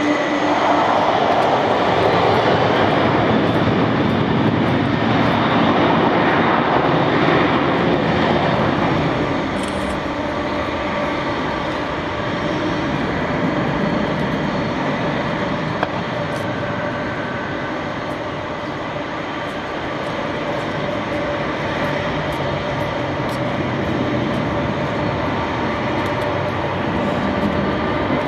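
Boeing 747-400 freighter's four jet engines running at low power as it taxis past: a steady jet whine over a rumble, a little louder in the first several seconds.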